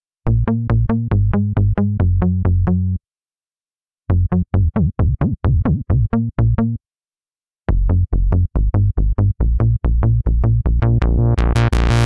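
Cherry Audio Miniverse software synthesizer, an emulation of the Minimoog, playing its 'Heavy Mute' bass preset: three runs of short, punchy bass notes at about five a second, separated by brief pauses. Near the end the filter cutoff is turned up and the notes turn brighter.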